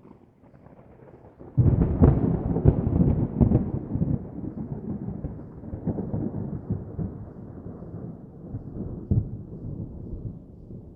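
Thunder: a low rumble, then a loud crack about a second and a half in that crackles for a couple of seconds and rolls on, slowly fading.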